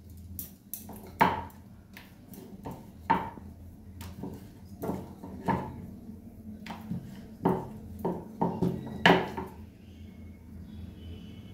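Irregular clinks and knocks of metal kitchen utensils and pots, about a dozen, the sharpest about a second in and near the nine-second mark.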